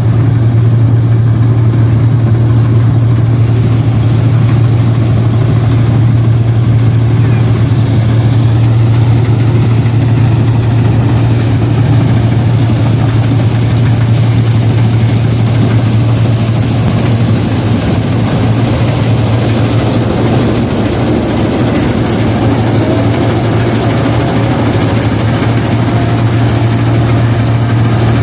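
Rice combine harvester engine running loud and steady with a constant low hum, close to the machine while it harvests paddy.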